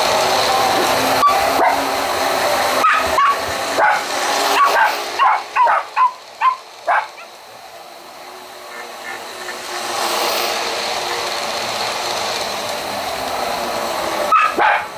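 Chihuahua barking at a running electric toy train: about a dozen short, high barks over the first seven seconds, some dropping in pitch, and a few more near the end. Under them the train's motor and wheels rumble steadily on the track, fading out mid-way and coming back.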